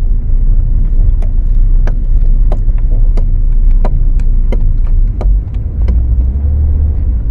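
A 2012 Ford Focus on the move, with a steady low road rumble and a run of short, sharp creaks from the chassis, roughly two to three a second. This is the creaking that other shops had taken for worn shock absorbers.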